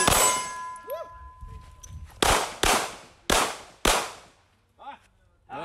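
Four pistol shots in quick succession, roughly half a second apart, fired as a handgun drill on an outdoor range. At the very start there is a sudden loud burst that leaves a steady tone ringing for about two seconds.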